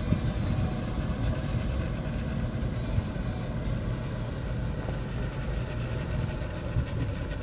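Small motorboat's engine running steadily as the boat manoeuvres slowly near the shore.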